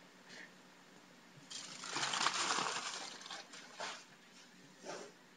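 Gloved hands kneading flour-dusted dough on a sheet of aluminum foil. A noisy stretch of handling starts about one and a half seconds in and lasts about two seconds, followed by two short bursts.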